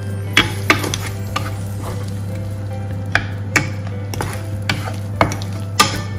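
Wooden spatula stirring mixed vegetables in a nonstick frying pan: a series of short scrapes and knocks against the pan over a light sizzle of vegetables frying in butter. A steady low hum runs underneath.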